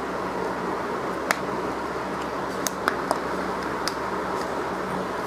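Small sharp plastic clicks, about five spread over a few seconds, as the ASUS Zenfone 2's snap-on plastic back cover is prised loose clip by clip, over a steady background hiss.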